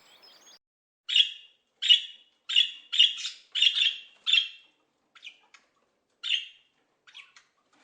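A parrot calling in a series of short, harsh squawks, about one or two a second, that grow fainter and sparser over the last few seconds.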